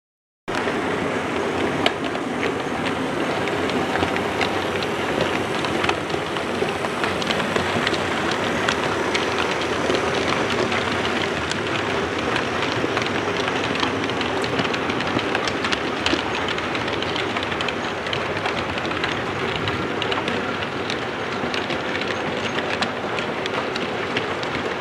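Model train running on layout track: a steady rolling rumble with many small clicks of the wheels over the rail joints.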